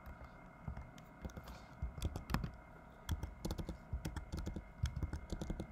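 Typing on a computer keyboard: irregular keystrokes, sparse at first and coming faster in the second half, as an IP address and subnet mask are entered at a command line.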